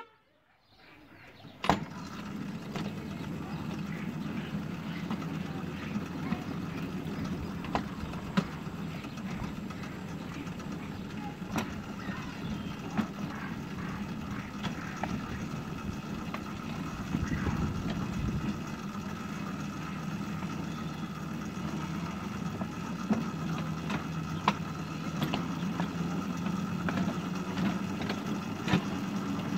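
Miniature railway shunter locomotive's engine running with a steady hum as it trundles slowly along the track. Scattered sharp clicks and knocks come from running over the track, the first and loudest about two seconds in.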